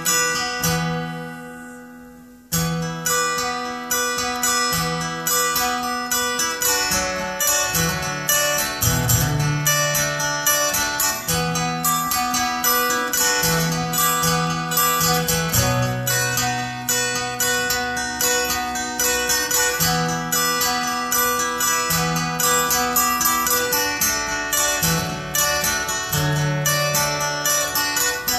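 Acoustic guitar playing an instrumental passage. A chord rings and fades out, then steady strumming starts again about two and a half seconds in and carries on through changing chords.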